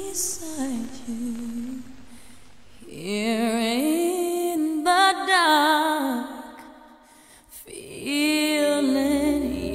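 A woman's voice singing a slow, wordless melody with vibrato, almost unaccompanied. It fades out for a moment about seven seconds in, then returns over a soft low accompaniment.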